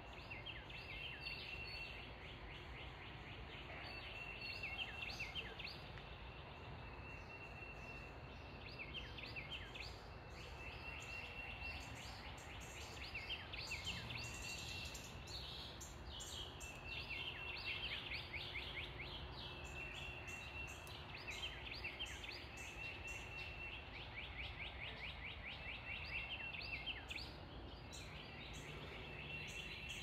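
Wild songbirds singing, one repeating a phrase over and over: a held level whistle followed by a quick run of down-slurred notes, every two to three seconds. A steady low rumble lies underneath.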